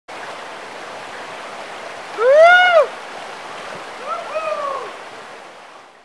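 Steady rush of flowing water, with two animal calls over it, each rising then falling in pitch: a loud one about two seconds in and a fainter one about four seconds in. The water sound fades away near the end.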